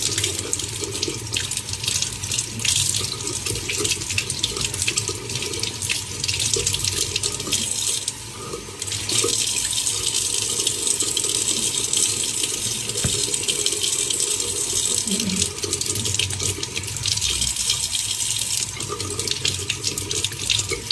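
Water running from a tap and splashing steadily, with a brief lull about eight seconds in.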